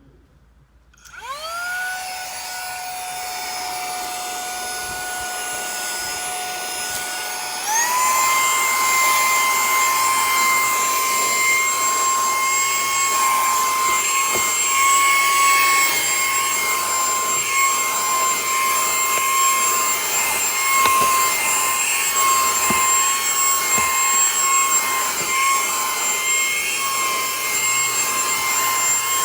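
Saker 3-in-1 HL122 handheld vacuum switched on at low speed: its motor whine rises as it spins up about a second in and holds steady. After about seven more seconds it steps up to high speed, louder and higher-pitched, and runs on steadily with a few light knocks of the nozzle.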